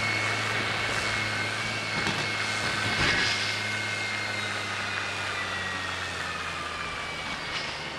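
Gilbert RTS snowmobile-trail groomer driving away, its engine running steadily with a high whine that slowly falls in pitch as the sound fades.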